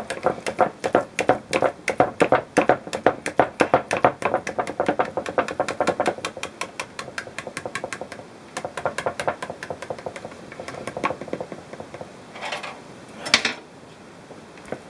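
A whisk beats ground-meat kebab mixture in a plastic bowl, a fast run of wet clicks and squelches at about five strokes a second that thins out after about six seconds. Two louder scraping knocks come near the end.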